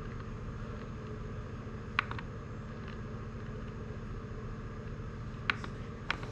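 Three sharp clicks from a rotary encoder knob being turned and pressed on an electronics control panel: one about two seconds in and two close together near the end, over a steady low hum.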